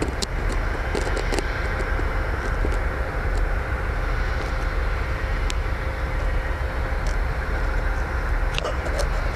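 Construction site ambience: a steady low rumble of outdoor noise with a few sharp clicks and a faint steady hum through the middle.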